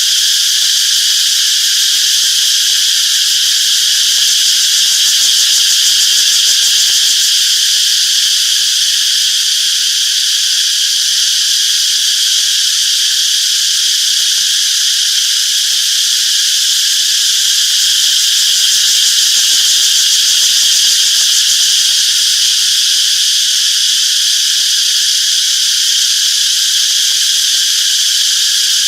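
Chorus of cicadas buzzing steadily, a dense high-pitched drone without a break.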